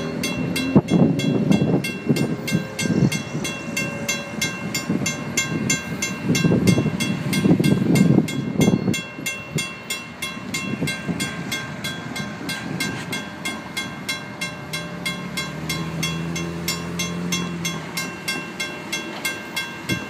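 A WCH mechanical crossing bell on an activated railroad crossing signal ringing continuously in rapid, even strokes. A low, uneven rumble runs underneath, loudest about eight seconds in.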